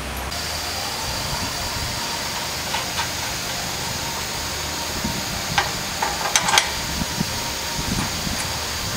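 Steady background hiss with a faint high whine, broken by a few light metallic clicks and taps as gloved hands handle the nuts and bolts on a snowplow mounting bracket; the loudest taps come in a quick cluster about six and a half seconds in.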